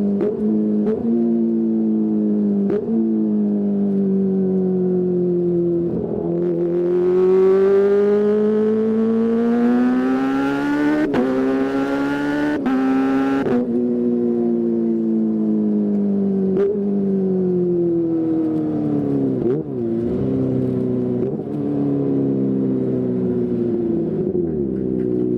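Kawasaki ZX-25R's 250cc inline-four with a DX Generation Pro Race aftermarket exhaust, running and being revved. The revs sag slowly, then climb hard for several seconds, louder and raspier, with a few brief sharp breaks. Then they fall away again.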